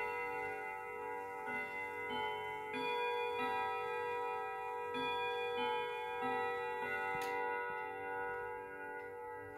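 Hermle triple-chime wall clock playing its chime melody on chime rods, a new note struck about every two-thirds of a second, each ringing on over the next. A sharp click comes about seven seconds in, after which the notes stop and the rings die away.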